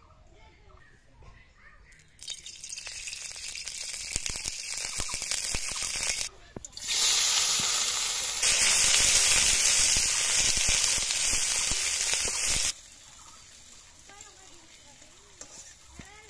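Oil poured into a hot iron wok over a wood fire, sizzling loudly. Before it a crackling hiss builds as the wok heats, and the sizzle cuts off abruptly about thirteen seconds in.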